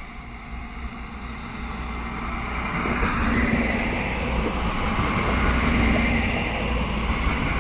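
A train moving through the station, its rumble growing louder over the first three seconds and then holding steady, with a faint engine drone.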